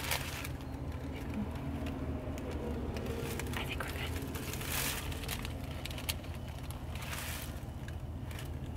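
Paper wrapper rustling and crinkling in short, scattered bursts as a pecan pie is handled, over a steady low hum inside a vehicle cab.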